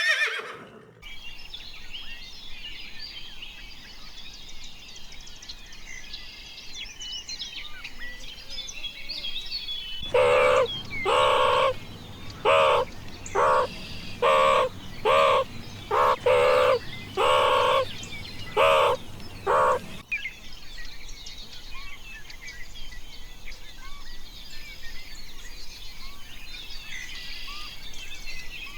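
Small birds chirping and singing, interrupted about ten seconds in by a run of about a dozen loud, evenly repeated pitched calls from a larger animal that last about ten seconds; then the chirping resumes.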